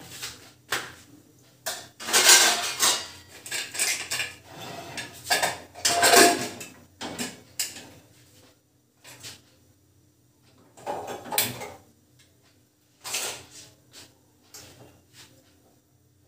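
Metal pots, pans and utensils clattering at a kitchen stove: irregular knocks, clinks and scrapes, busy for the first several seconds, then a few scattered clinks.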